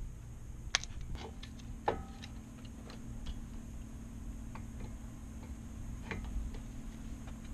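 Scattered light clicks and taps at uneven intervals, a few with a brief metallic ring, over a steady low hum: tools and parts being handled during brake work.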